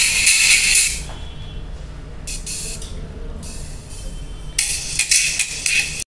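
ZIPP RD02 silk dome tweeter, fed through a series capacitor, playing music from a phone: only the treble comes through, a thin, hissy sound. It drops back after about a second, returns in bursts, is loudest near the end, and cuts off suddenly.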